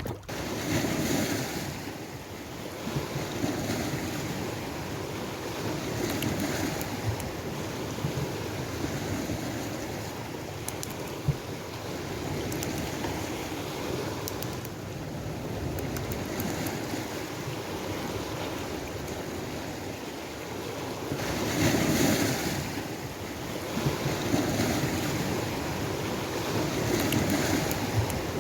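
Choppy sea waves washing and surging, with wind buffeting the microphone. The noise swells and eases every few seconds and is loudest about two-thirds of the way through.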